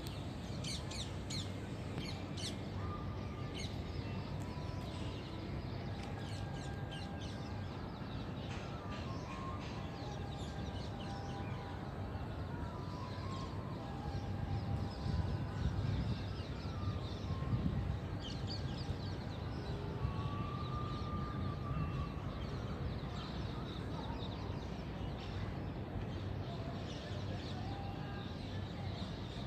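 Many birds calling together: quick high chirps and short whistled notes, over a steady low background noise.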